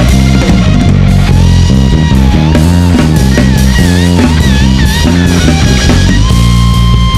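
Instrumental rock-jazz trio playing: electric guitar, electric bass and drum kit. From about a second in, the guitar plays a lead line of long held notes that waver in pitch with vibrato, over a steady bass line and drums.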